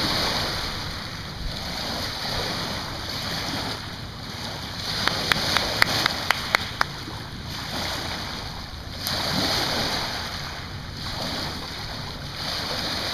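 Small waves breaking and washing up a pebble beach, swelling every three to four seconds. A quick run of sharp clicks comes about halfway through.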